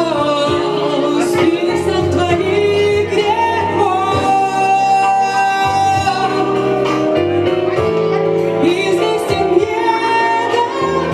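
Music: a slow blues song, a woman singing long held notes over instrumental accompaniment.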